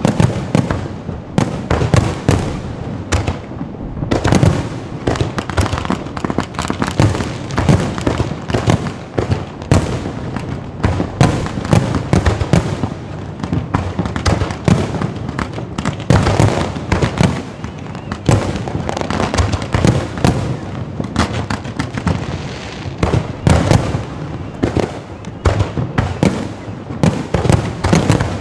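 Fireworks going off in a dense, irregular volley of bangs and crackles that does not let up.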